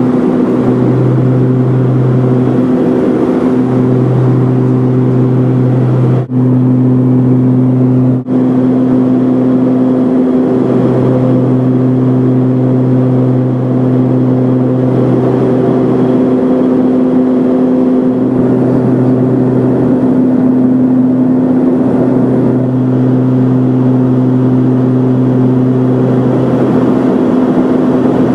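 Cabin drone of a King Air B200's twin PT6 turboprop engines and propellers in flight on approach: a loud, steady hum whose lowest note fades and swells every few seconds. The sound cuts out very briefly twice, around six and eight seconds in.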